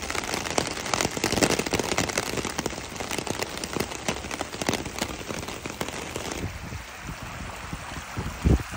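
Heavy rain striking a car's glass and body in dense drops, heard from inside the car. About six seconds in it gives way abruptly to a quieter, even wash of rainwater running down a dirt track, with a short thump near the end.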